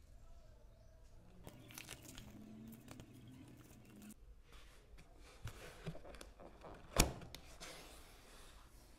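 Paper rustling as a manual and service card are slid out of a paper envelope and handled, with one sharp knock about seven seconds in.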